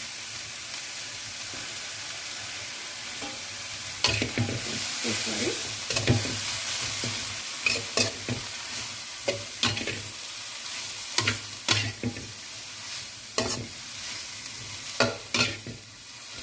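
Stir-fry of alfalfa sprouts, chicken and fried tofu skin sizzling in oil in a pan with a steady hiss. From about four seconds in, a stirring utensil knocks and scrapes against the pan in quick, irregular strokes as the food is tossed.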